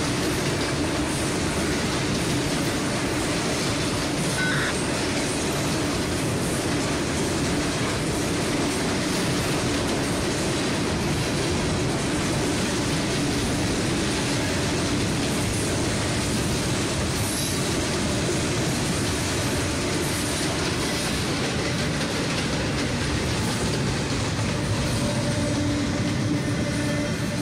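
CSX double-stack container freight train rolling past, its well cars carried on steel wheels over the rails in a steady, unbroken rolling noise.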